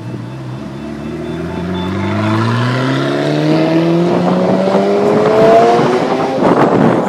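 Ferrari F40's twin-turbo V8 accelerating away hard in one gear, its exhaust note rising steadily in pitch and growing louder for about six seconds. Near the end the engine note gives way to a loud rush of noise.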